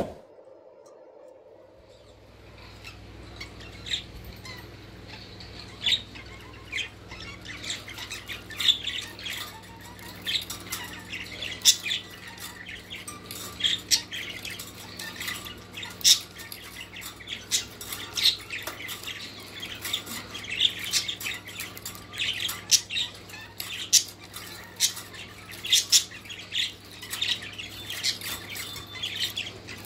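Pet kakariki parakeet giving short, sharp chirps and squawks, scattered every second or so and coming more often in the second half, over a steady low hum.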